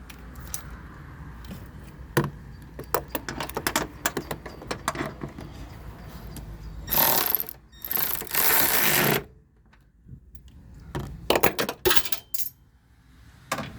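Hand tools and metal parts clicking and clinking irregularly while a 13 mm bolt is tightened under the hood, with two longer scraping noises about halfway through.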